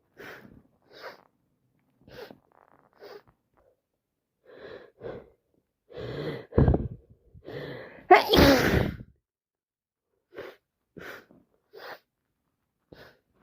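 A woman sneezing over and over: a string of short sneezes and catching breaths, with the loudest, longest sneeze about eight seconds in.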